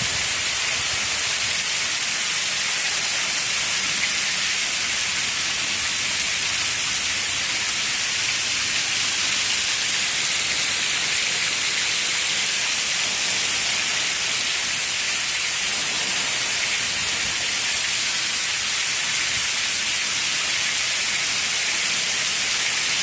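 Torrential rain pouring down onto grass and concrete, a steady dense hiss.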